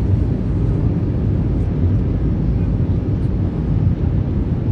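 Cabin noise inside an Airbus A319 airliner on approach, heard from a window seat over the wing: a loud, steady, low rumble of engines and airflow.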